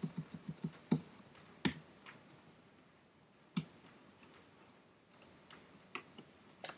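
Computer keyboard keystrokes and mouse clicks: a quick run of light key taps in the first second, then single sharp clicks every second or so.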